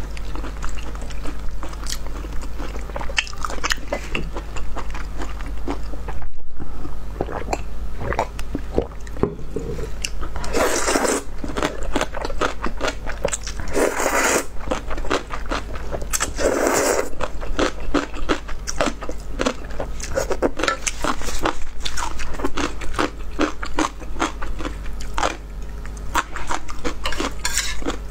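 Close-miked eating of noodle soup: wet chewing and mouth clicks, with three loud slurps of noodles about a third of the way in, at the middle and a little after. A steady low hum runs underneath.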